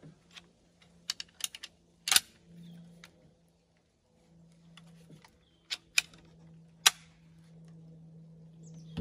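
Light clicks and knocks from a Chinese Type 53 bolt-action carbine being picked up and handled, its metal fittings and wooden stock knocking together. There is a quick run of small clicks about a second in, a louder knock near two seconds, and three sharp clicks later on, over a faint steady low hum.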